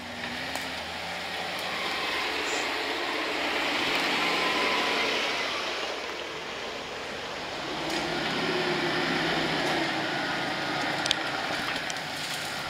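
Jeep Wrangler driving slowly along a dirt off-road trail: the engine runs under a steady wash of tyre and rattle noise, with a sharp knock about eleven seconds in.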